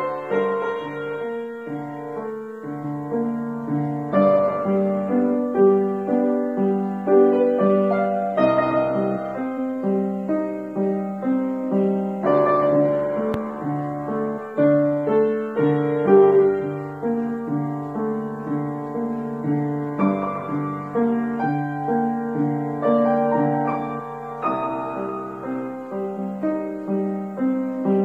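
Solo piano playing a slow, gentle piece in G minor, a melody over chords that change about every four seconds.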